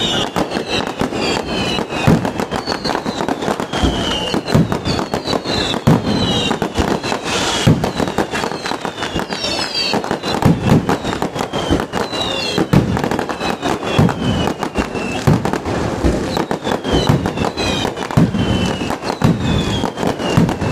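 Fireworks going off without a break: rapid bangs and crackling, mixed with many short whistling tones.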